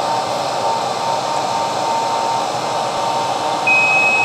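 Hair dryer blowing steadily on the inverter's temperature sensor. Near the end a steady high-pitched beep starts: the inverter's high-temperature alarm as the sensor reaches 80 °C.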